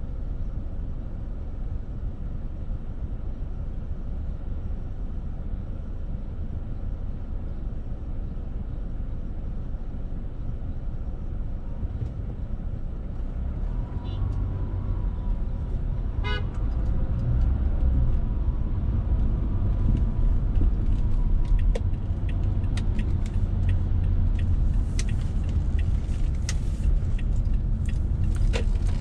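Car cabin road and engine rumble while driving in city traffic, growing louder about two-thirds of the way through as the car gets moving. A faint car horn toots about halfway, and scattered sharp clicks come near the end.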